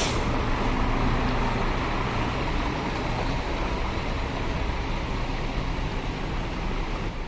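Intercity bus engine running, a steady low drone in the first few seconds that then eases off into general traffic noise.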